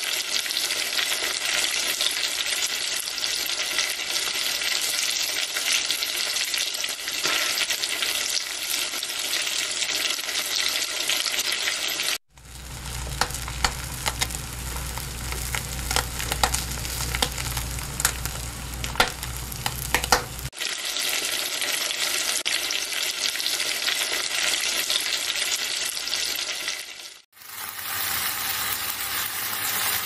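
Food frying in hot oil: a steady sizzle, broken by three short dropouts where one recording cuts to the next. In the middle stretch an egg fries with many sharp crackles and pops over a low hum.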